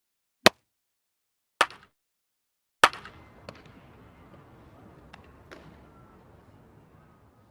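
Baseball bat hitting a ball: three sharp cracks a little over a second apart. The last is followed by a few seconds of fading noise with faint clicks.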